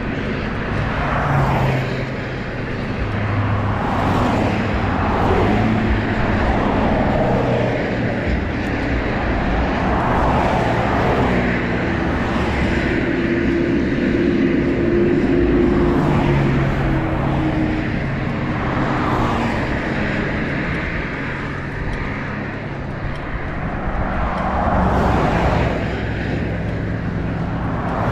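Cars passing at speed on a busy road, one after another every few seconds, each swelling and fading as it goes by, over a steady rumble of traffic and road noise.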